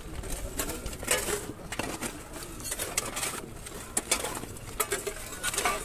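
Shovels scraping and clinking in soil and stones as a grave is filled, in irregular strokes, over a low murmur of men's voices.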